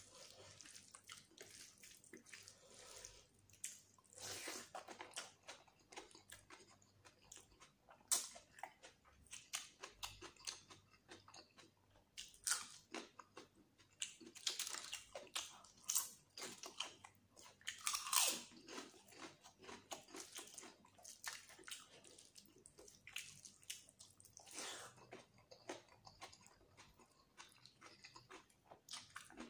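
Close-miked eating of rice and chicken curry by hand: wet chewing and lip smacking, with crunchy bites and sharp clicks coming at irregular intervals.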